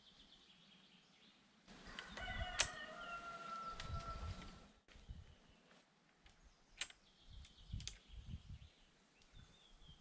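A rooster crowing once, a single long call about two seconds in, with small birds chirping faintly and a few sharp clicks.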